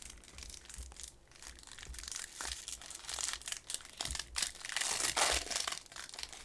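Paper-and-plastic wrapper of a trading card pack being torn open and crinkled by hand: irregular crackling rustles that thicken partway through and are loudest about five seconds in.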